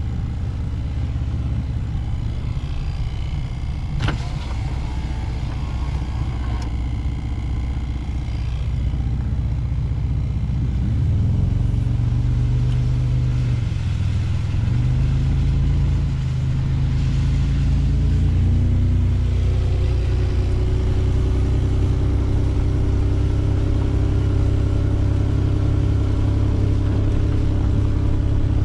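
A vehicle driving slowly over a wet dirt road, its engine running with a steady low hum and a single knock about four seconds in. The engine note rises and grows louder about halfway through as it picks up a little.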